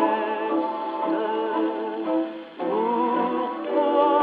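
A 1937 Odeon 78 rpm shellac record playing on a Columbia Vivatonal 101 acoustic gramophone: music from late in the side, with wavering, vibrato-laden melody notes and a brief drop in loudness just past halfway.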